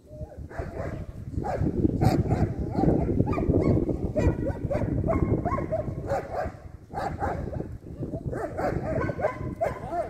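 Dogs whining and yipping in many short rising-and-falling cries, over a low rumble that is heaviest in the first half.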